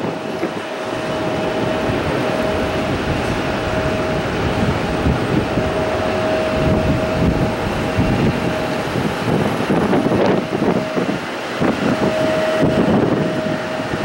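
Jet engine noise across an airport: a steady rumble with a constant whine, which drops out briefly twice.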